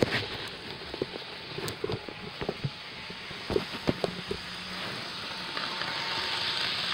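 Toy Christmas model train running on its track, a steady whirring hiss that grows louder as a car passes close by near the end, with scattered irregular clicks and knocks in the first few seconds.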